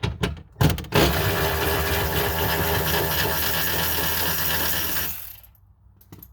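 A few clicks, then a cordless power tool runs steadily for about four seconds and stops, backing out the bottom bolts of the window regulator.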